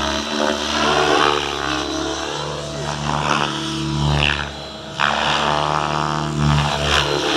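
Radio-controlled helicopter flying 3D aerobatics: its engine and rotor whine rise and fall in pitch over and over as it manoeuvres. The sound dips briefly about two-thirds of the way through, then comes back abruptly.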